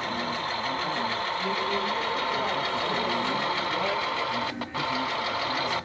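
HO scale GMD-1 model diesel locomotive running slowly along the track: a steady mechanical whir of its small motor and wheels on the rails.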